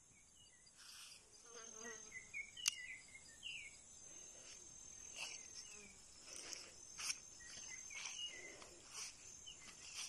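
Insects, crickets or similar, trilling steadily in a thin high band, with short higher chirps scattered through it. Several sharp clicks come in; the loudest is nearly three seconds in.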